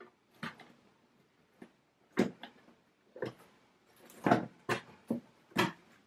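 Wire cage top and plastic hamster cage base knocking together as the top is fitted on: a string of short clicks and clatters of wire and plastic, about eight in all, the loudest a little past the middle.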